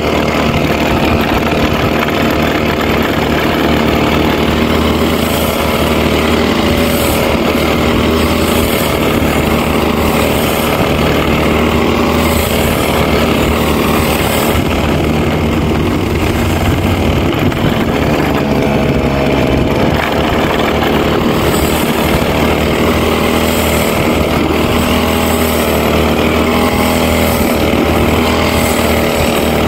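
Engine-powered brush cutter running continuously while cutting grass, its engine note wavering a little as it works.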